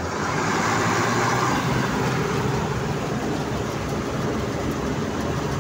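Bizon combine harvester running with its threshing unit engaged, the engine throttled up and rising over the first second, then running steadily at speed. The repaired rear section runs without wobbling.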